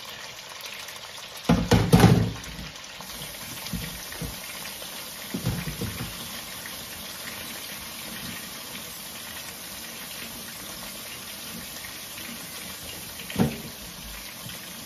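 Kitchen tap running steadily into a sink while things are rinsed. There is a loud clatter about two seconds in and a few lighter knocks later, the last near the end.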